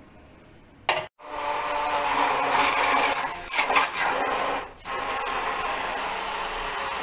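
Electric hand blender with its chopper jar running, whirring and grinding food, after a sharp knock about a second in. The motor starts loud and uneven, dips briefly near the end, then runs steadier.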